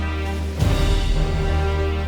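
Background music with sustained chords; about half a second in, a fuller, louder chord comes in with a deep hit.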